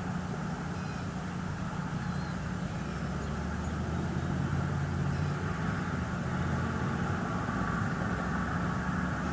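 Steady low drone of a distant engine, with a steady hiss of outdoor background noise.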